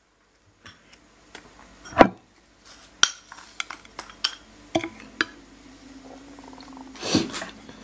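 Small cut-glass bowl and metal spoon clinking and tapping against a plate as a crispy fried topping is tipped out onto a dish: one sharp knock about two seconds in, then a run of lighter taps and clinks, and a short scuffling noise near the end.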